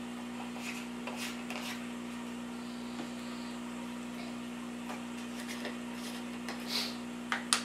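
Steady low hum with faint rustling and small plastic clicks from a plastic food jar being handled and its screw lid twisted, ending in a couple of sharper clicks near the end.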